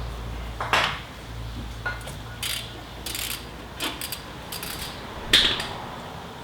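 Metal tools and strut parts clinking and knocking as they are handled, several separate sharp strikes, the loudest about a second in and another near the end, over a low steady hum that fades out about halfway.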